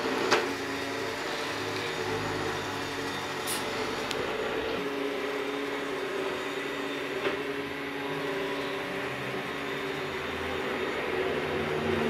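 ES300 robot vacuum cleaner running across a tiled floor: a steady motor hum, with a few light clicks along the way.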